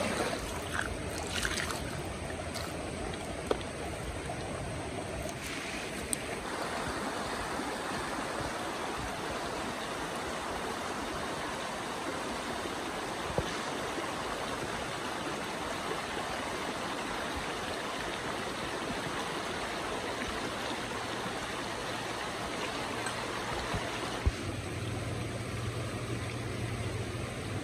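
Shallow forest stream rushing over stones, a steady noise of running water, broken by a few sharp clicks and knocks now and then, the loudest one near the end.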